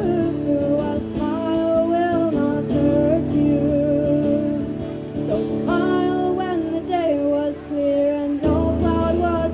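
A woman singing a melody over acoustic guitar accompaniment.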